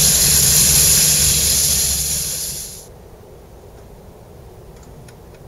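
Steam locomotive 18 201 standing with steam hissing loudly over a low rumble; the hiss fades and then cuts off abruptly about three seconds in, leaving a much quieter background with a few faint ticks.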